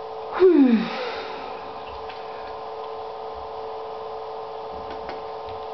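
A short voiced cry falling sharply in pitch, about half a second in, over a steady background hum; a few faint light taps follow.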